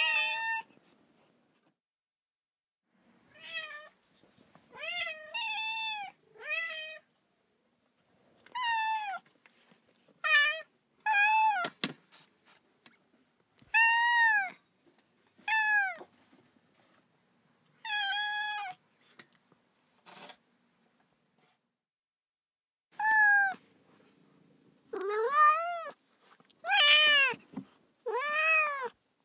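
Cat meowing over and over: a long series of separate meows, each rising and then falling in pitch, with short pauses between them. The meows come faster and louder near the end, and a single sharp click sounds about midway.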